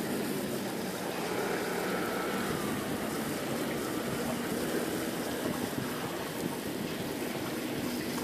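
Steady outdoor background noise: an even low rumble with no distinct events.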